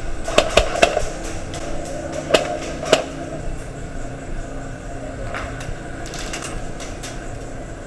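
Airsoft guns firing: five sharp shots in the first three seconds, three of them in quick succession, then fainter scattered shots a couple of seconds later.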